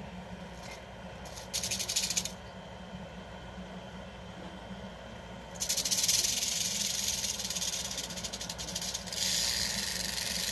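Rattlesnake shaking its tail rattle: a short buzz about a second and a half in, then a sustained rattling buzz from about halfway through that grows louder near the end. It is the snake's defensive warning, given while she is restrained in a tube.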